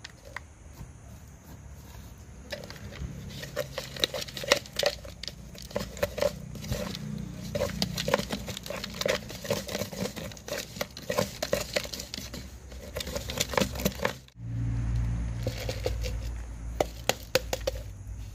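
A charcoal powder mixture being stirred and kneaded in a plastic jar, giving a run of quick clicks and scrapes against the plastic. About two-thirds of the way through it cuts to a steady low hum, with a few more clicks near the end.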